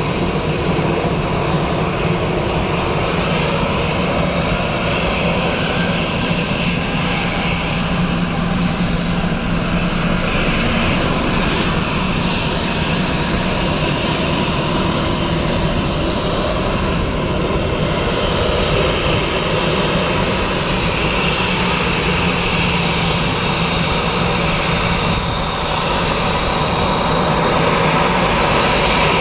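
Airbus A320-family airliner's twin jet engines running at taxi power: a steady jet whine over a deep rumble, growing a little louder near the end as the aircraft comes closer.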